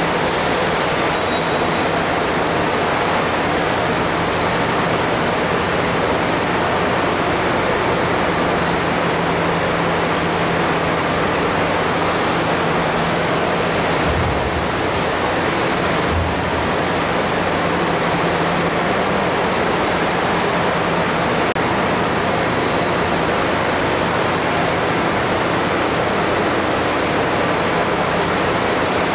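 Steady workshop machinery noise: an even rushing sound with a low hum and a faint, constant high whine.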